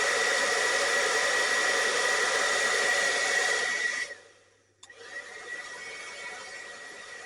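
Cloud 9 Airshot hairdryer running, a steady rush of air with a high whine from its fan motor. It cuts off about four seconds in, then after a click runs again at a quieter setting. The dryer is blowing cold, giving no heat, a fault typical of a failed heating element or thermal fuse.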